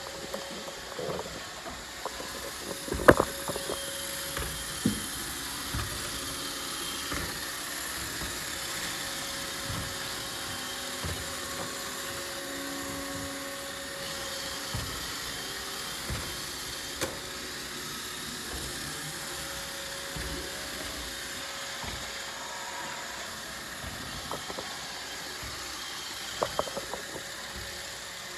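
Roomba robot vacuum running with a steady motor whir and brushing, with occasional sharp knocks, the loudest about three seconds in and a few more near the end.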